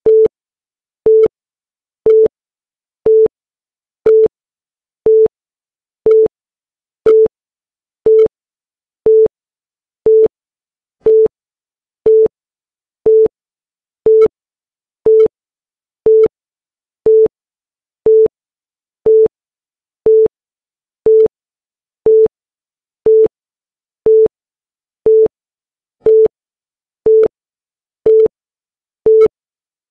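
Electronic timer beep once a second: a short single tone with a click at each start, ticking off the seconds of a chronometer.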